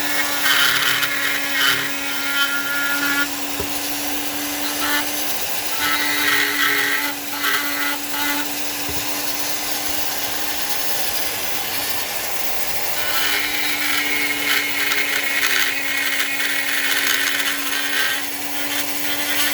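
Dremel rotary tool running at a steady whine, its bit grinding into wood in three passes, the last and longest near the end: rough-grinding the raised laces of a carved wooden football.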